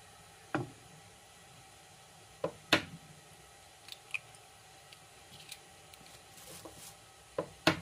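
Eggs being cracked open over a glass bowl: sharp shell knocks, a double knock near the middle and another double knock near the end, with faint ticks and softer sounds as the shell is pulled apart and the egg drops into the bowl.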